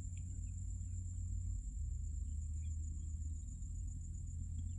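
Background room tone: a steady low hum with a faint, continuous high-pitched whine.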